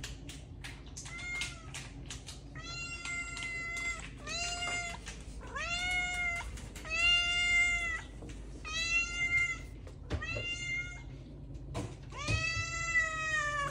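Domestic cat meowing repeatedly, about eight meows, each rising then falling in pitch and most under a second long; the last one, near the end, is the longest.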